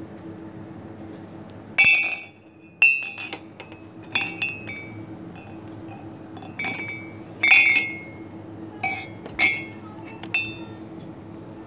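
Ceramic mugs clinking against each other as they are handled and set down, about nine sharp knocks at uneven intervals, each ringing briefly.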